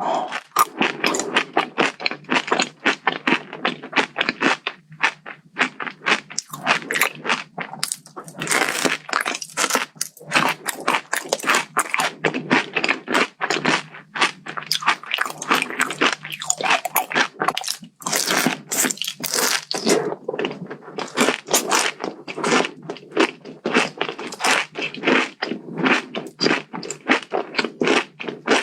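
A person biting and chewing a Dubai-style chocolate bar filled with crisp kadayif (shredded kunafa pastry), with a dense run of irregular crackly crunches.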